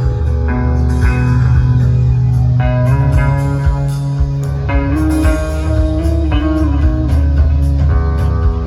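Live blues-rock band playing through an RCF line-array PA with subwoofers: electric guitar lines with some bent notes over a heavy, steady bass.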